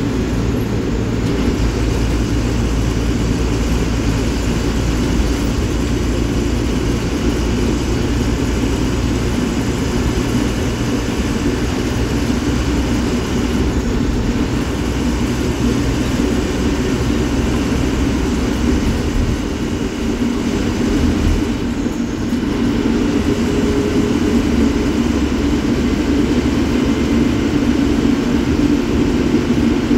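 A bus's diesel engine heard from inside the cabin while driving on the road, running with a steady low drone. The sound eases off briefly about two-thirds of the way through, then builds louder toward the end.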